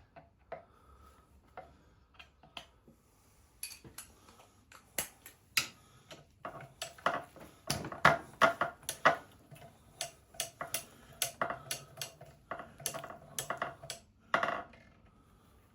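Metal tools clicking and clinking on the conrod big-end nuts of a Petter A1 stationary engine as the nuts are undone. The clicks come at an irregular pace with a short metallic ring, sparse at first and thick through the middle.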